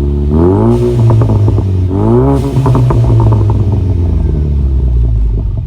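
2015 Ford Mustang EcoBoost's tuned turbocharged 2.3-litre four-cylinder, heard from the exhaust, blipped twice from idle: each rev rises quickly and drops back with a spatter of crackles, then it settles to a steady idle.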